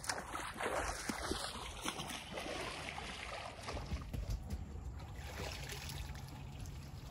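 Water lapping and sloshing around a boat's hull on a lake. A low steady hum comes in about four seconds in.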